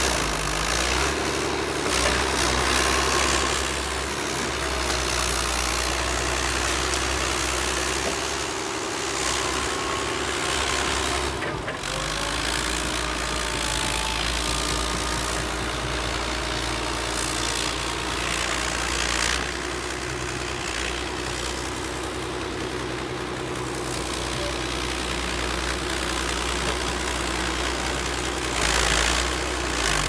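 Crawler bulldozer's diesel engine running steadily as the dozer pushes soil and brush, with a brief dip in the low rumble about a third of the way in.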